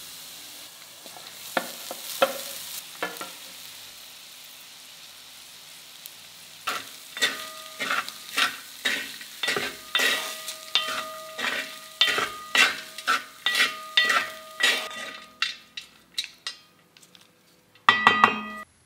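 A tempering of peanuts, green chillies and capsicum sizzling softly in oil in a metal kadai. Then cooked rice is stirred through it with a metal spoon: regular scraping strokes about twice a second, each setting the pan ringing faintly, with a last quick flurry of strokes near the end.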